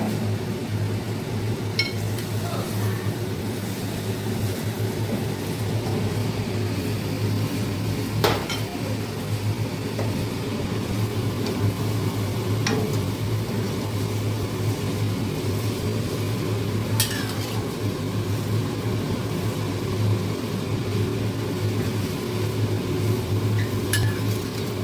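A utensil stirring and scraping in a metal pot, with a few sharp clinks as soup is ladled into a bowl, over a steady low hum and the pot's simmer.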